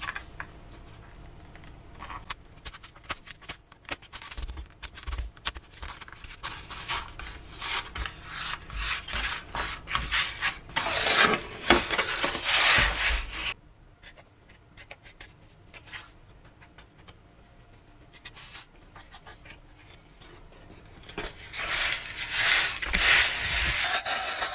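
Sheets of depron foam being handled and slid over a foam wing on a wooden table: irregular rubbing and scraping, loudest a little before the middle and again near the end.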